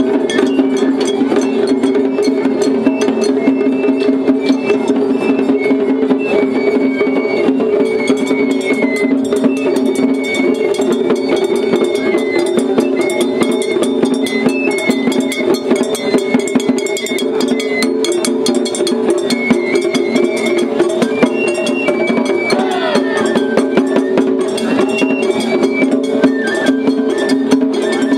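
Festival float hayashi music: a taiko drum and other percussion struck in a rapid, steady rhythm under a high bamboo-flute melody of short held notes.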